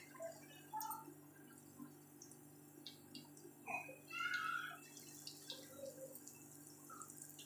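Faint crackling of hot oil as besan-battered potato tikki balls deep-fry in a pan, with scattered small pops and drips and a slightly louder patch about four seconds in.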